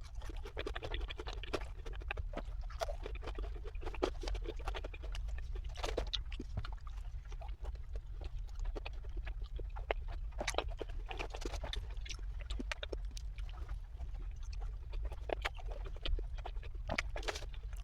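Close-up chewing and mouth sounds of someone eating a chicken sandwich and fries: irregular wet smacks and clicks over a steady low hum.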